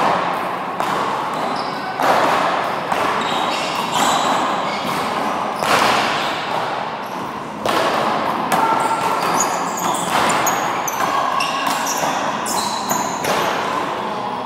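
A rubber handball being struck by hand, smacking off the front wall and bouncing on the court floor in a rally, with each hit echoing around the large hall. In the second half, sneakers give short high squeaks on the court floor.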